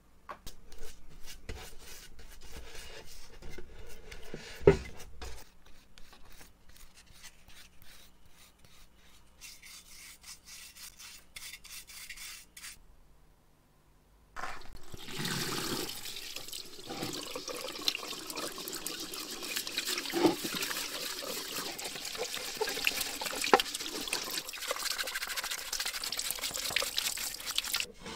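Brushing and rubbing on a metal firefighter's helmet coated in white paste, with scattered small clicks and one sharp knock. About halfway in, a louder, steady hissing scrub takes over, with frequent sharp knocks.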